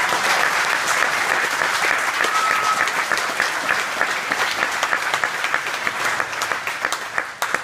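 Audience applauding steadily, the clapping thinning out and fading away near the end.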